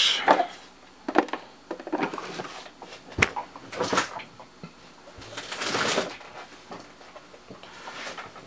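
Playing cards and card stacks being handled: scattered light clicks and taps, with a short rustle a little past halfway.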